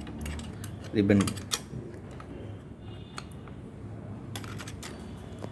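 Scattered small metallic clicks and rattles from a Remington manual typewriter's mechanism as its parts are handled during servicing. The clicks are irregular, with a quick run of them near the end.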